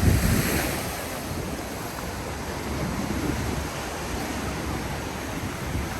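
Ocean surf washing steadily onto a sandy beach, with wind buffeting the microphone, strongest in a short gust at the very start.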